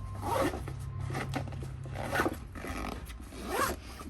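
An animal's vocal calls: four short calls that bend upward in pitch, over a low steady hum.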